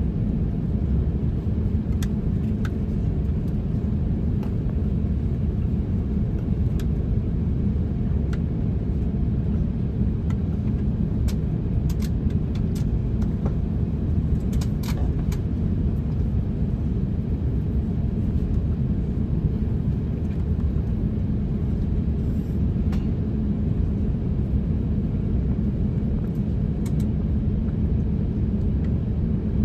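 Steady low rumble of an Airbus A350-900 airliner cabin, with a few faint clicks scattered through it.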